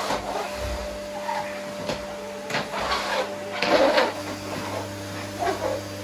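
Irregular light knocks and clatters of objects being handled, with a louder cluster of clatter near the middle, over a steady faint hum.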